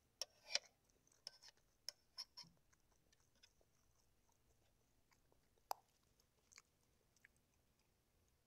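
Faint eating sounds: chewing and a fork picking at fish on a plastic tray, heard as scattered small clicks and smacks. They bunch in the first couple of seconds, and the loudest come about half a second in and just before six seconds in.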